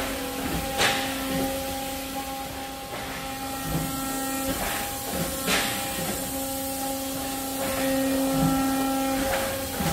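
Industrial plant machinery hum, a steady drone of several fixed tones. A short, sharp sound repeats about every four and a half seconds over it.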